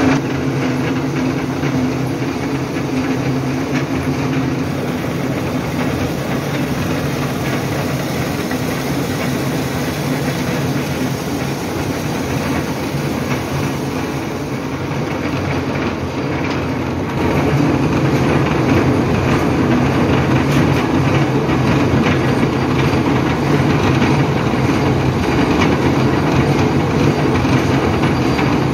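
Factory machinery running steadily: a loud, continuous rattling mechanical drone that gets louder about seventeen seconds in.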